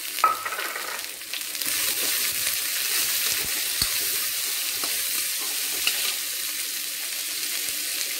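Chopped onions sizzling steadily in hot oil with a mustard-seed and lentil tempering, stirred in a stainless steel kadai with a steel spoon. A few sharp clicks come as the spoon knocks against the pan.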